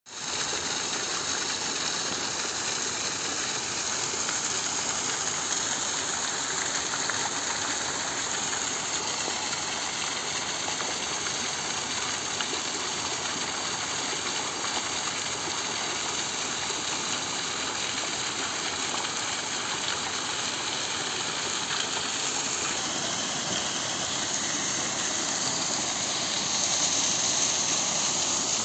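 Water gushing off the end of a wooden chute and splashing onto rocks and a pool below: a steady rushing splash, a little louder near the end.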